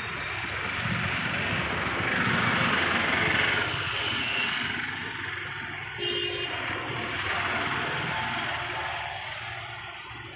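Backhoe loader's Kirloskar diesel engine running, with a short beep about six seconds in.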